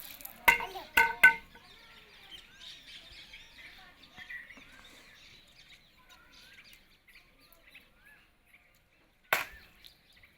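A rubber balloon bursting with a single sharp pop about nine seconds in, after three short squeaky sounds around the first second. Birds chirp faintly in the background.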